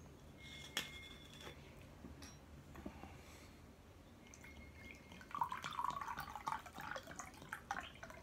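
A glass clinks once with a short ring about a second in. Over the last few seconds, water splashes and crackles into a glass tumbler as it is poured from a glass bottle.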